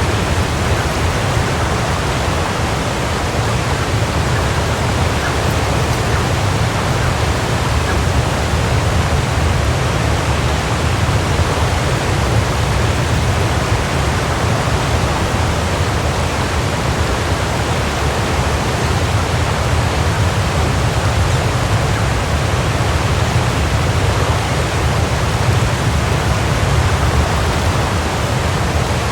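Waterfall: a steady rush of falling water, strongest in the low end, without change.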